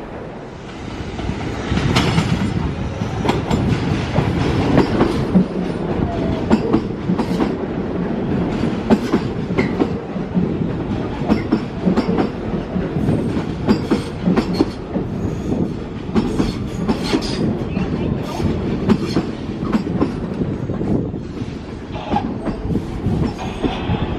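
New York City Subway R46 train moving along the station platform: a steady rumble packed with rapid clicks of the steel wheels over rail joints, and a few short squeaks.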